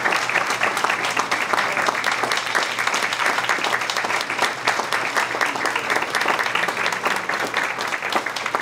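Audience applauding: many people clapping together in a dense, continuous patter.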